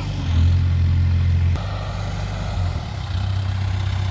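Diesel engine of heavy farm or earthmoving machinery running with a steady low drone. It gets louder about a third of a second in, drops back about a second and a half in, and rises again about three seconds in.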